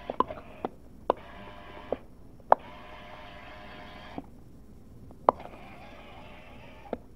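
Small electric motor and plastic gears of a toy RC scooter whirring in four short runs of one to two seconds each as it drives across carpet. Each run starts and stops on a sharp click.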